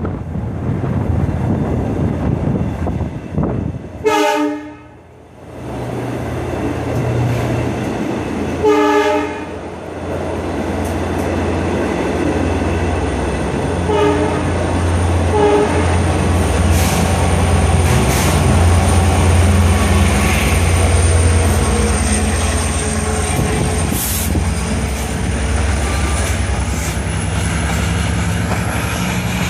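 LIRR diesel locomotive #417 sounding its horn four times, two longer blasts then two short ones, with wind buffeting the microphone. After the horn, the locomotive's diesel engine runs steadily and grows louder as the train leaves the station.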